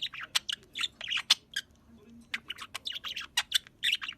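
A bird giving a rapid series of short, sharp squawks and chirps, with a brief pause about halfway through.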